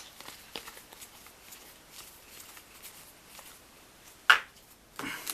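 Magic card booster pack being opened and its cards handled: faint scattered clicks and rustles, with a sharp crinkle of the pack wrapper about four seconds in and another shorter one near the end.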